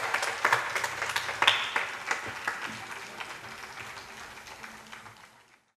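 Audience applauding, the clapping thinning out and fading, then cutting off abruptly near the end.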